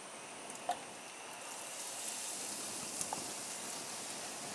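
Battered pollock fillet sizzling in hot oil in a frying pan: a steady frying hiss that grows a little stronger after about a second and a half, with a few faint pops.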